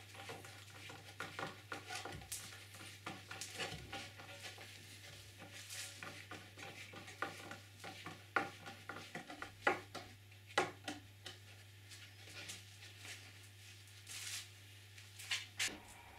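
Hand screwdriver driving screws through a bulkhead into a wooden kayak hull: faint, irregular clicks, creaks and scrapes of tool, gloves and wood, over a faint steady hum.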